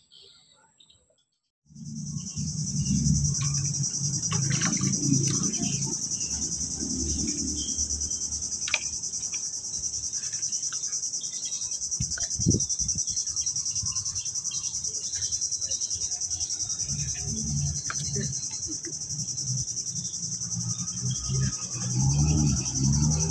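Insects chirring in a steady, high-pitched drone that starts suddenly about two seconds in, with low rustling and handling noise close to the microphone and a few light clicks.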